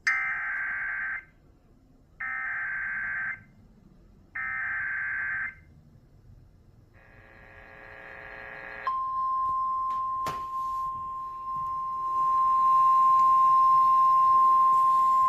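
Emergency Alert System header tones: three one-second bursts of warbling data tones. After a brief swelling cluster of tones, a single steady alert tone starts about nine seconds in and grows louder near the end, the attention signal that comes before a weather warning.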